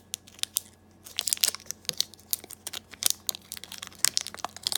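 Thin green plastic heat-shrink wrap being torn and peeled off a vape battery cell by hand: irregular crinkling and crackling, sparse at first and busier from about a second in.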